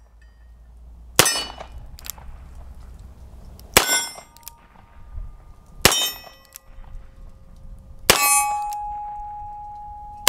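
Rossi RP63 .357 Magnum revolver firing .38 Special rounds, four shots about two seconds apart, each answered by the clang of a steel target ringing on. The ring after the fourth shot holds longest, and another shot comes right at the end.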